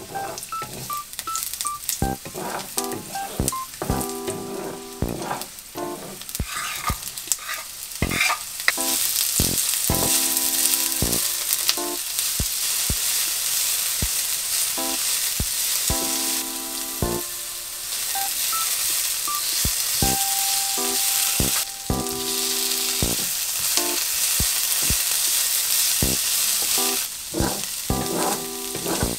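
Garlic and sliced onion sizzling in oil in a nonstick frying pan, stirred with a wooden spatula that knocks and scrapes against the pan. The sizzle is light at first and grows much louder about eight seconds in, then stays steady.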